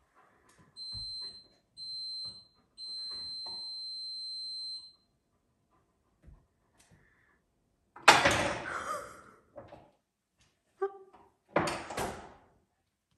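A high electronic beep sounds twice briefly, then a third, longer time. About eight seconds in and again about three seconds later come two loud clattering crashes as a large dog rummages through objects on a kitchen worktop.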